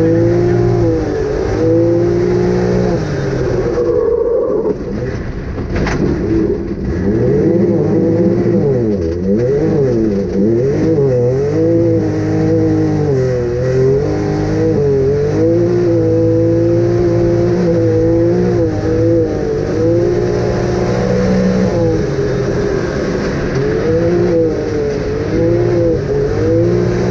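Off-road vehicle's engine running under load, its pitch rising and falling as the throttle is worked, with a brief drop-off about four seconds in.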